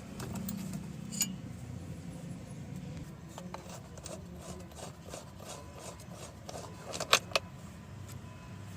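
A 22 mm socket wrench working loose the steering-wheel retaining nut: a run of small irregular metallic clicks and clinks, with a few sharper clicks about a second in and twice around seven seconds.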